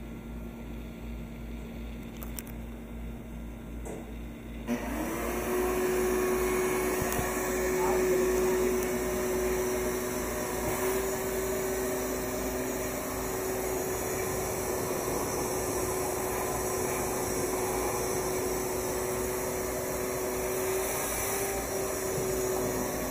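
Shop vacuum switched on about five seconds in, its motor spinning up quickly to a steady whine and then running, its hose working over an oven floor.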